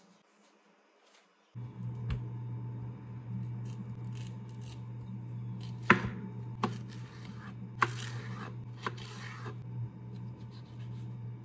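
Knife cutting vegetables on a chopping board: a few sharp knocks of the blade against the board, with some scraping between them. A steady low hum sets in about a second and a half in.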